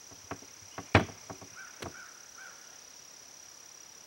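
Parts of an XOP Vanish Evo cast-aluminum hang-on treestand knocking and clicking as the frame and seat are handled, with one sharp, loud knock about a second in and lighter clicks around it. A steady high insect drone runs underneath.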